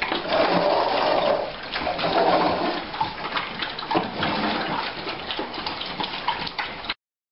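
Dogs eating after being released: a noisy stretch of chewing with many small clicks. It cuts off abruptly near the end.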